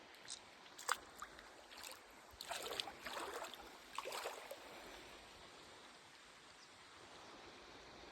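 Faint running water with a few small clicks, then two short bursts of splashing about two and a half and four seconds in.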